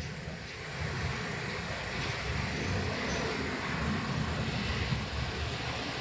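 Outdoor ambience: an uneven low rumble with a steady hiss above it.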